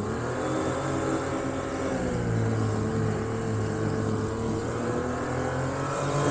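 Boat motor running under way, a steady engine note whose pitch holds with slight rises and dips.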